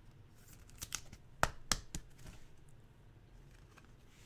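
Trading cards being flipped through by hand: a handful of light clicks and snaps as the stiff cards slide off one another, the two sharpest about a second and a half in.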